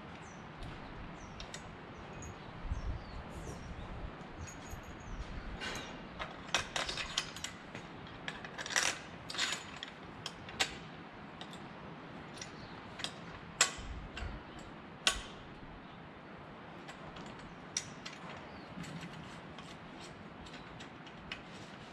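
Ratchet wrench and steel bolts on a Warp Drive propeller hub clicking and clinking as the hub bolts are worked on by hand: irregular, scattered small metallic clicks, with a few sharper ones midway through.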